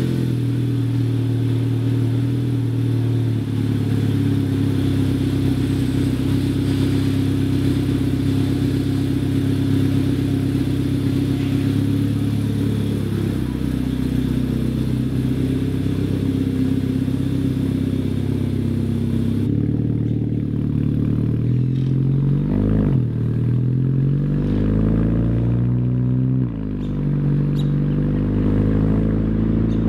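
Turbocharged 2.0-litre four-cylinder of a Stage 2 VW Golf GTI Mk6, breathing through a 3-inch catless downpipe and Magnaflow cat-back exhaust. It idles steadily for the first half, then pulls away with the revs rising and falling several times in the last third.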